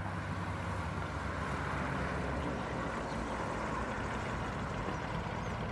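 Beechcraft Baron 58's twin piston engines running steadily.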